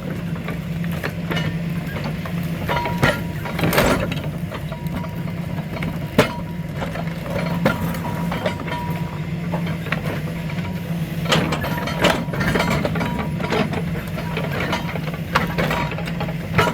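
Excavator diesel engine running steadily, with scattered sharp knocks and cracks from the hydraulic crusher or grab attachment at work.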